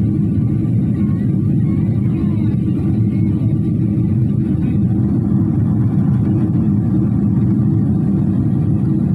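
Boeing 777 cabin noise during the climb: the jet engines and rushing airflow heard from a seat over the wing, a steady low rumble that does not change.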